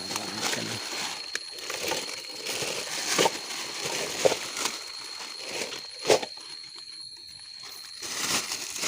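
Crickets trilling in one steady high note, over rustling and scuffing, with a few sharp knocks and clicks from handling or footsteps.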